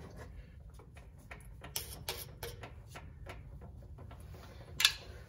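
Faint, irregular ticking of gear oil dripping from the pried-open rear differential cover into a plastic drain bucket, with one brief louder noise near the end.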